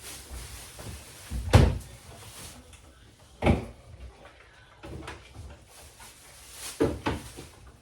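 A few knocks and thumps of groceries being handled into a refrigerator, the loudest about one and a half seconds in, with further knocks about three and a half seconds in and near the end, and quieter rustling between.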